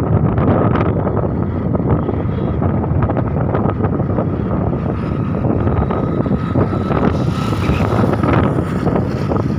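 Wind buffeting the microphone over the steady running noise of a vehicle moving along a road, a loud, even rumble.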